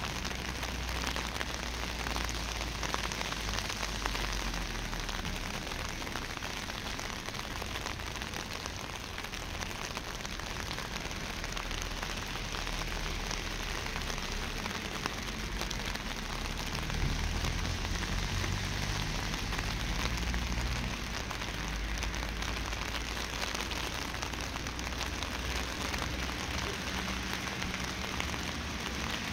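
Steady rain falling, an even hiss. Underneath it is a low rumble that grows a little louder just past the middle.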